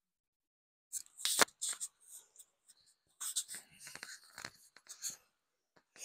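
Footsteps crunching and scuffing on a dirt path strewn with dry leaves: an irregular string of short scratchy steps, the loudest about a second and a half in.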